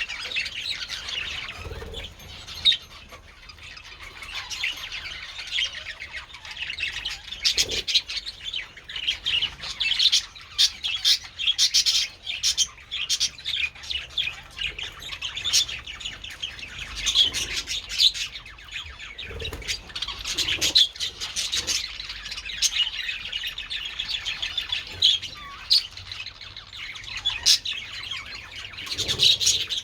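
A colony of budgies chattering continuously: a dense warble of chirps and twitters with frequent short, sharp squawks.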